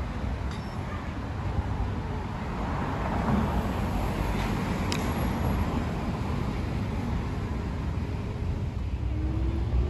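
Car engine and road noise: a steady low rumble with a swell in the middle, a single sharp click about five seconds in, and the engine pitch rising near the end as the vehicle speeds up.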